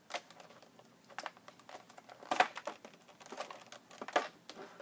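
Packaging of a trading-card collection box being handled: irregular sharp plastic clicks and crinkles, with the loudest clicks about halfway through and near the end.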